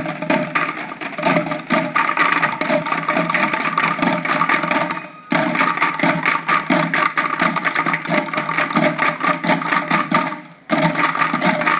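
An ensemble of children drumming on plastic buckets with sticks: a dense, fast stream of hits. Twice everyone stops at once for a split second, about five seconds in and again near the end.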